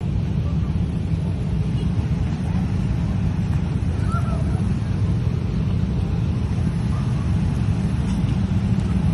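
Wind buffeting the microphone: a steady, loud low rumble with no pitch, starting abruptly at a cut.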